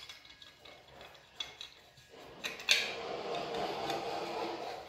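Hand screwdriver turning a screw through a plastic spacer into a tiled wall: scattered small clicks and scraping, with one sharp click about two and a half seconds in.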